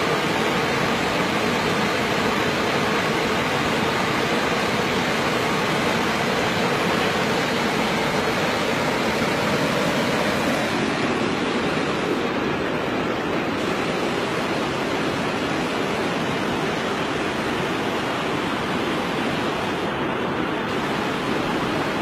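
Steady rushing of flowing water at a waterfall, an even, unbroken roar with no distinct splashes.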